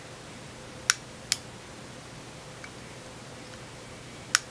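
Three sharp clicks, two about a second in and one near the end, over a faint steady hum, from a Newacalox automatic solder-feed soldering iron at work as its solder is brought to the hot tip.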